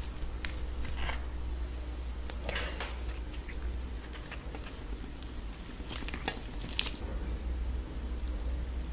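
Hands tearing soft naan and scooping thick curry gravy with it: soft tearing and squishing with a few light clicks, over a steady low hum.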